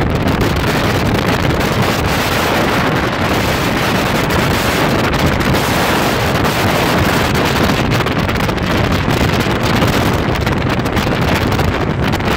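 Steady, loud wind rush on the microphone from riding in a small motorboat under way, with the boat's own running and water noise mixed into it.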